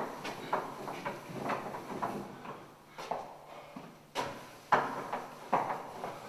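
A wet sponge swept hard across a chalk-covered blackboard in quick repeated strokes, each starting with a knock and trailing off in a short rubbing swish, about two a second. The strokes ease off for a moment in the middle, then come back with two louder knocks.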